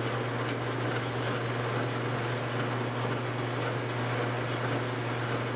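Workshop machinery running steadily: a constant low hum under an even rushing air noise, with no change in speed.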